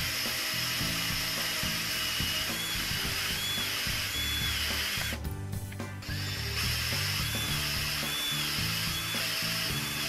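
Cordless drill with a speed-out screw extractor bit running on a stripped battery terminal screw, backing it out. It runs twice with a steady high whine, stopping for about a second and a half midway.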